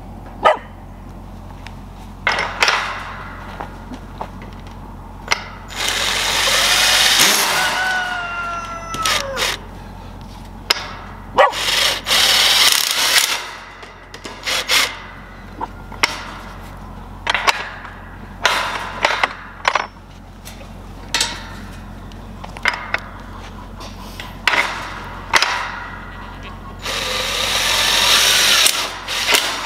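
Power drill driving screws into a gate latch on a thin steel tube gate, in two runs of about three seconds each, the motor pitch bending under load in the first. Sharp metal clanks and taps come between the runs as parts are handled.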